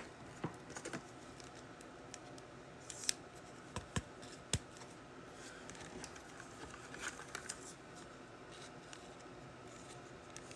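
Trading cards being handled and sorted on a table: faint scattered clicks, taps and scrapes, a few sharper ticks a third of the way through.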